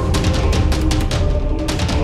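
Background music with heavy bass and a fast, driving drum beat.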